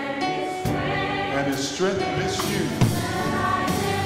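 Gospel choir singing with instrumental accompaniment and a male lead singer on a handheld microphone; the low end of the accompaniment comes in about half a second in.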